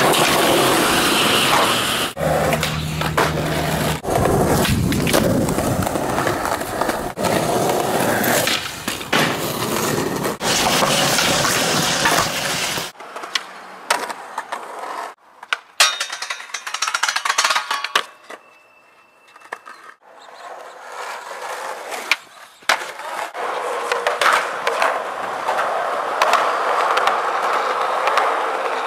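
Skateboard on concrete: urethane wheels rolling, with sharp clacks of pops, grinds and board landings. About halfway through the sound drops abruptly to quieter rolling with scattered clacks.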